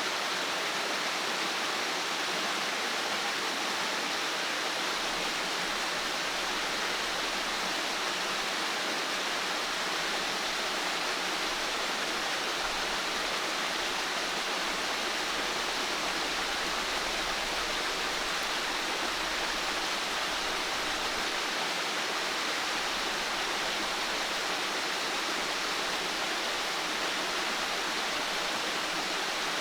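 Steady, even rush of water with no distinct events.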